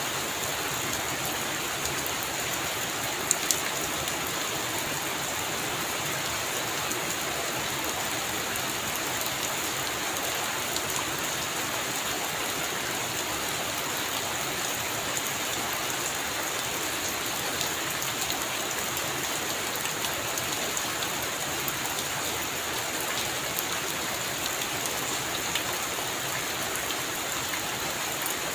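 Heavy rain falling steadily, an even hiss with scattered sharp drop ticks, two louder ones about three seconds in.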